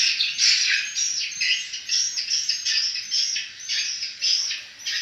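Many swiftlets chirping and twittering together in a dense, continuous stream of short, high calls.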